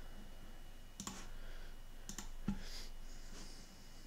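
A few separate, quiet computer mouse clicks as chart drawing tools are selected and a line is placed, over faint room hiss.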